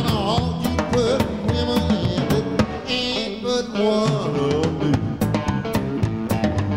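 Live electric blues band playing, with a drum kit keeping a steady beat under bass and guitar, and a lead melody bending and wavering in pitch over them.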